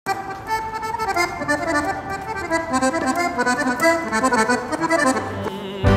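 A street musician's accordion playing a melody of quick, changing notes over chords.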